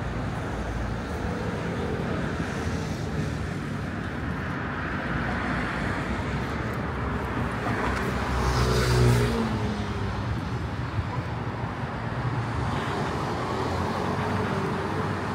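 Steady city street traffic noise, with one vehicle passing close by about eight to nine seconds in.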